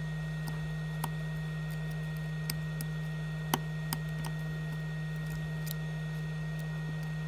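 Steady low electrical hum, with a handful of light, sharp clicks and ticks from handling the circuit board and tools on the workbench; the loudest click comes about three and a half seconds in.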